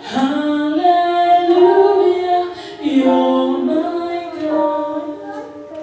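Gospel choir singing, women's voices leading, with long held notes that change pitch every second or so.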